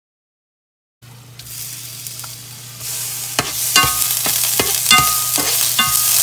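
Minced garlic sizzling in hot vegetable oil in a nonstick frying pan, starting after a second of silence and growing louder about three seconds in. A metal utensil stirring the garlic clinks and scrapes against the pan about ten times.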